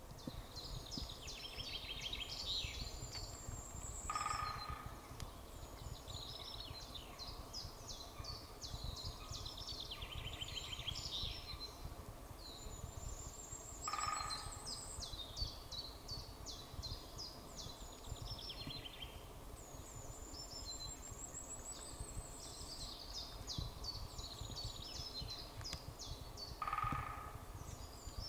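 Songbirds singing: repeated quick trilled phrases, several with a high rising note, over a low steady rumble. A short, lower call sounds three times, roughly every eleven to thirteen seconds.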